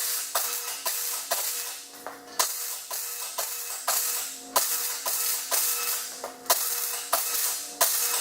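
Instrumental background music with light percussion and a steady beat.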